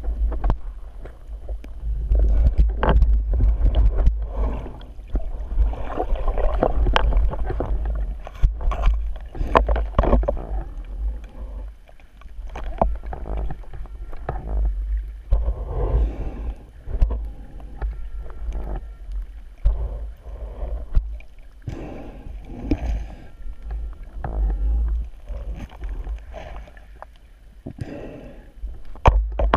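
Underwater noise heard through a waterproof camera housing: water swirling over a constant low rumble, with irregular swells and many sharp clicks and scrapes as the bottom of sand and shells is disturbed while digging out a target.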